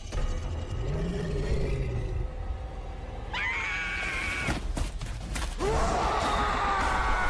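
A giant ape's low growl, then a high, wavering shrieking roar from the ape and a pack of smaller apes about three seconds in. Near the end comes a man's long, raw scream.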